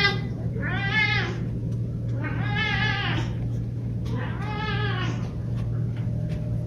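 Domestic cat meowing repeatedly, about four calls roughly two seconds apart, each rising then falling in pitch, over a steady low hum.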